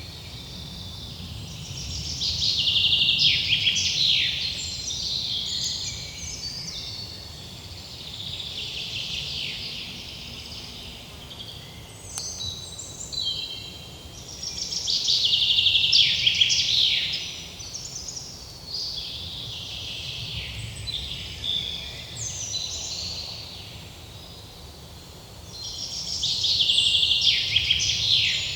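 Songbirds singing in a forest. One bird repeats a loud song phrase of about two to three seconds three times, roughly every twelve seconds, with softer chirps from other birds in between and a faint low rumble beneath.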